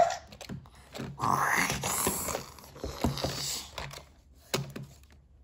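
Plastic toy figures of Godzilla and a Carnotaurus knocking, clicking and scraping against each other as they are made to fight. A rough, noisy sound comes in about a second in and again around three seconds.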